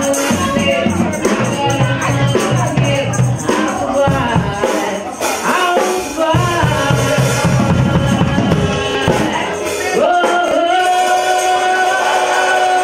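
A woman singing live into a microphone over music, with a tambourine shaken along; about ten seconds in she holds one long, steady note.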